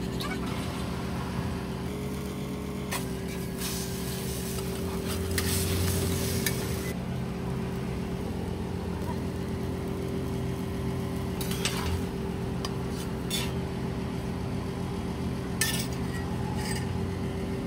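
Bread and fillings sizzling on a steel flat-top griddle, with a metal spatula scraping and clinking on the griddle now and then, loudest a few seconds in, over a steady mechanical hum.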